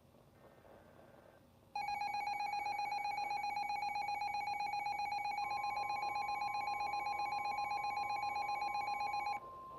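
A loud, buzzing electronic alert tone starts about two seconds in and cuts off suddenly near the end. About halfway through, a steady pure single-pitch tone joins it and keeps going: the NOAA Weather Radio 1050 Hz warning alarm tone that comes before a broadcast warning.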